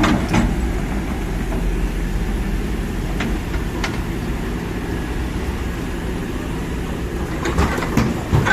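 Kobelco SK200 excavator's diesel engine running steadily, with occasional sharp metallic clanks, a few of them together near the end.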